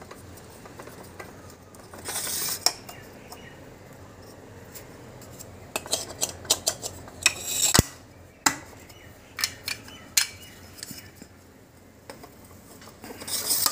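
Irregular clinks and knocks of bowl-and-impeller sets being fitted one after another onto a V4 submersible pump's shaft and stack, in short clusters with pauses between.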